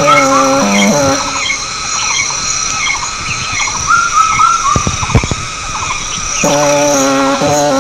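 Background music: sustained chords that drop out for a few seconds in the middle, leaving a high warbling melody line and a few clicks, before the chords return near the end.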